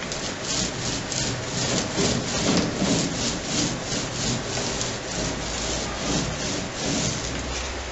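Brush scrubbing epoxy resin onto a plywood boat floor in quick back-and-forth strokes, about three to four a second.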